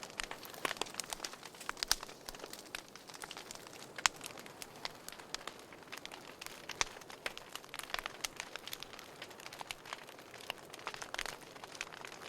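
Wood fire burning in a fireplace, crackling with irregular sharp pops over a soft steady hiss, a couple of louder snaps standing out.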